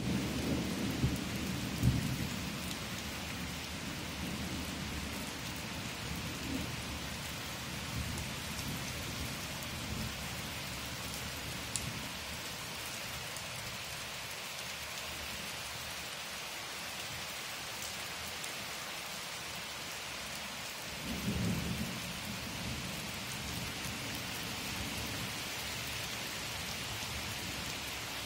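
Steady rain falling on wet grass and puddled ground, an even hiss, with low rumbles in the first couple of seconds and again about two-thirds of the way through.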